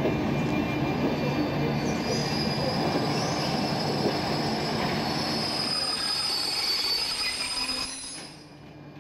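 Loaded double-deck car-carrier wagons rolling slowly over the rails during shunting, wheels squealing in a high steady squeal; the rolling noise fades near the end as the wagons come nearly to a stop.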